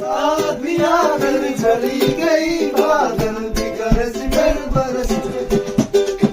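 Music: a song with a singing voice over plucked string accompaniment.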